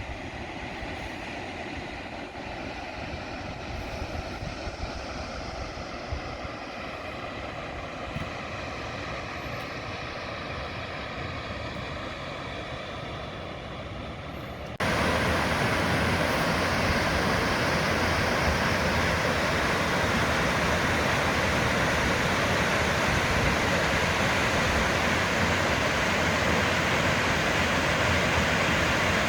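Steady rush of a waterfall and its fast-flowing creek, jumping suddenly louder and brighter about halfway through and then holding steady.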